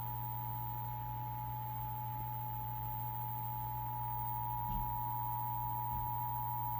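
Emergency Alert System attention signal: the steady two-tone alarm of 853 Hz and 960 Hz sine waves played together, over a low hum. It cuts off suddenly at the end, marking the start of an EAS test message.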